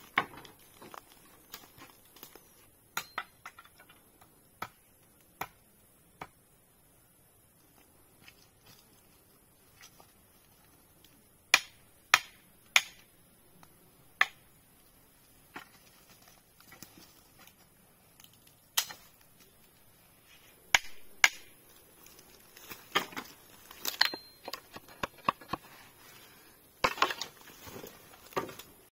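Irregular sharp knocks and taps from handwork on wood, spaced out with quiet gaps; a few louder strikes come in the middle, and they come faster in a busier run near the end.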